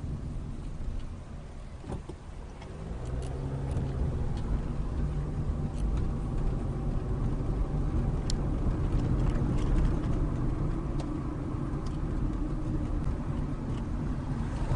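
Car engine and tyre noise heard from inside the cabin while driving slowly; the engine note grows louder about three seconds in as the car picks up speed, with a few faint ticks and rattles.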